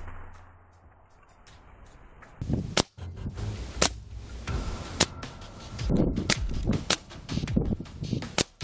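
Air rifle being fired at a laptop: a series of sharp single cracks, about five or six roughly a second apart, starting a little under three seconds in.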